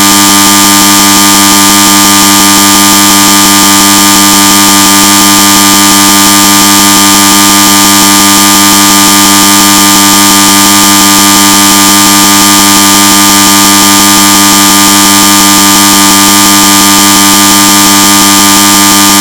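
Electric bell of the school-bell kind ringing continuously: one loud, steady, buzzing ring that does not pause or change.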